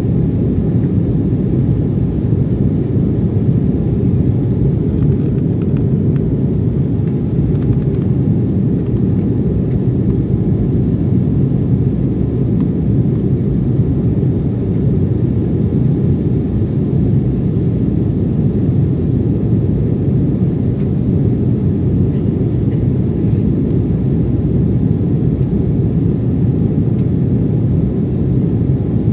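Steady low rumble inside a jet airliner's cabin as it climbs after takeoff: engine and airflow noise at an even level.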